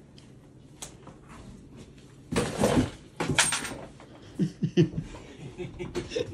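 Blankets rustling as they are shaken out and spread over a floor mattress: two loud rustles a couple of seconds in, the second with a thin high squeak.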